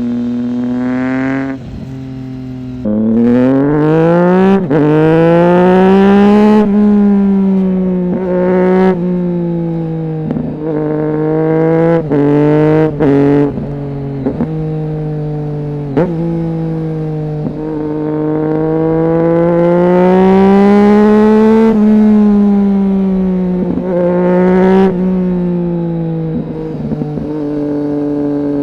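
Triumph Street Triple 675's 675 cc three-cylinder engine through a Roadsitalia aftermarket exhaust with one of its two dB killers fitted, running loud with revs climbing and falling again and again. There are several sudden breaks in the pitch and a few stretches held at a steady pitch.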